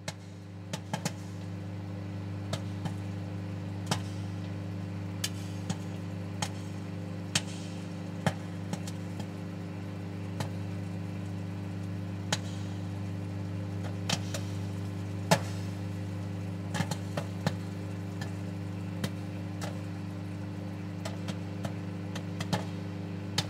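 Microwave oven running with a steady electrical hum while popcorn pops inside at irregular intervals, a sharp pop every second or so. The sound stops abruptly at the end.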